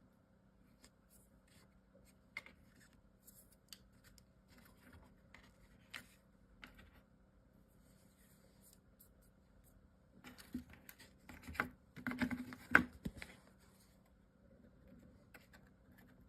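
Faint clicks, taps and rustles of paper and chipboard pieces being handled, lined up and pressed together, with a denser run of handling noise about ten to thirteen seconds in.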